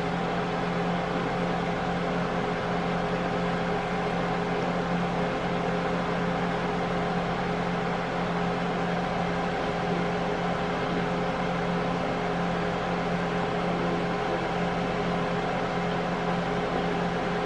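Chicken drumsticks sizzling in hot oil in an electric deep fryer: a steady frying hiss with a constant low hum beneath it.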